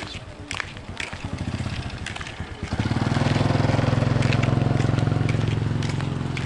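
Motorcycle engine running close by, growing louder from about a second in, holding steady through the middle and fading near the end.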